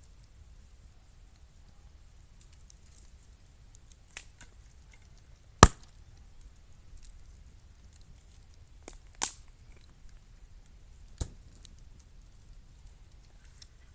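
Bamboo burning in a fire, popping with sharp cracks as it heats. There are about five pops: one a little before halfway, the loudest soon after it, two in quick succession about two-thirds in, and one more near the end, with faint crackling between them.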